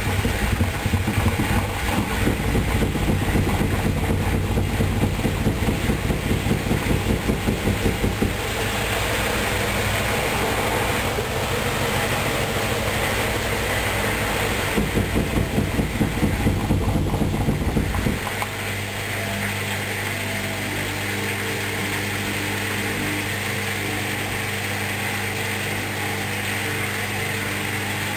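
Hoover Dynamic Wash washing machine starting its final spin: the drum speeds up with fast rhythmic thuds from the uneven load, twice. It then drops to a steadier motor hum as the machine tries to balance the load.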